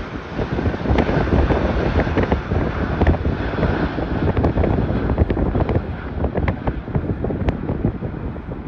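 Four-engined Airbus A380 jet airliner climbing out at takeoff thrust: a deep, continuous jet roar with sharp crackling, its higher tones fading over the last few seconds as it pulls away. Wind buffets the microphone.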